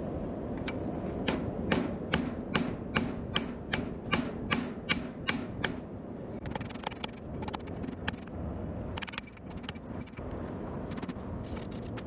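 Hammer blows ringing on hot steel over an anvil, a quick run of about three strikes a second that then gives way to fewer, lighter taps, as tong jaws are forged.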